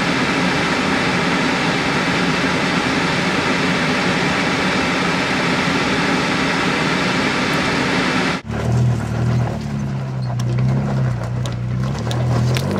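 Nissan Xterra driving on a rough trail: a loud, steady rushing noise for about eight seconds, then an abrupt cut to the engine running low with scattered clicks and rattles.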